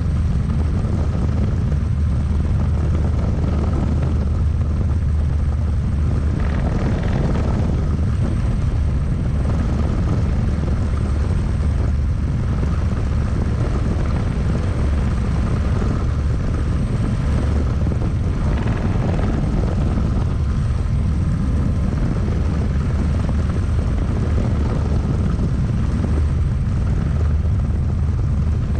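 Single-seat turbine-powered experimental helicopter (an Eagle R&D design) in flight, heard from inside the cockpit: a steady, loud rotor and turbine drone, heaviest at the low end.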